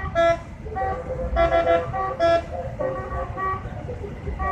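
Telolet bus horns, multi-tone musical horns, playing quick runs of short notes that change pitch every fraction of a second. The louder, fuller phrases come about a second and a half in and again just after two seconds, over a low rumble.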